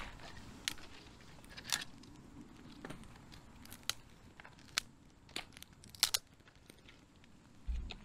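Small campfire of twigs and dead wood crackling, with sharp single pops at irregular intervals, about one a second. A brief low thump near the end.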